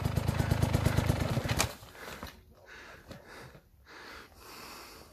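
KTM enduro motorcycle's single-cylinder engine running with a low, even beat, then cutting out abruptly about a second and a half in, leaving only faint knocks.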